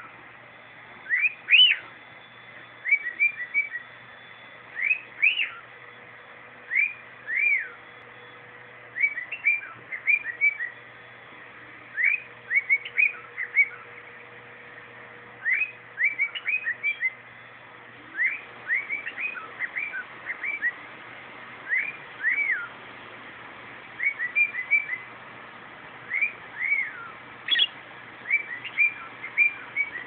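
Male cockatiel singing: short whistled notes, many rising and falling in arches, in little phrases of two to four notes every second or two.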